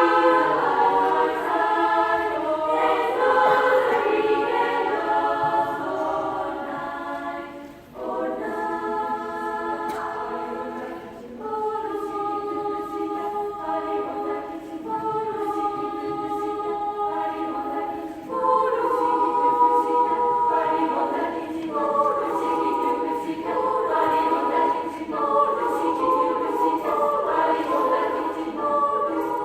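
Children's choir singing in several parts at once, with sustained notes and short breaks about eight and eleven seconds in.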